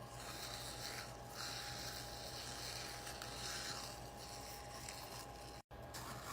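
Faint rustling and scraping of hands handling a fidget toy, in soft swells over a low steady hum; the sound cuts out completely for an instant near the end.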